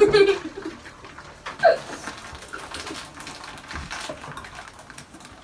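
Faint eating sounds, spoons and forks tapping bowls amid chewing, with a short vocal sound at the start and a brief rising vocal sound about one and a half seconds in.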